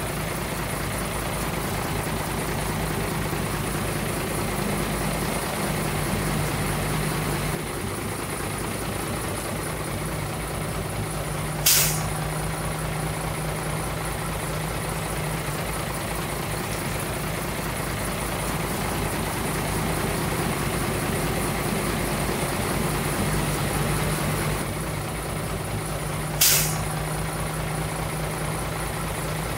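Dump truck's diesel engine running steadily at idle, with two short, sharp air-brake hisses about fifteen seconds apart.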